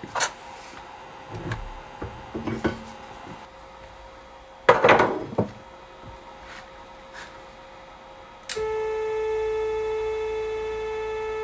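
A few knocks and clunks, the loudest about five seconds in, then about eight and a half seconds in the drill press knee's stepper motor starts driving the ballscrew through its toothed belt with a steady high whine as the knee moves down.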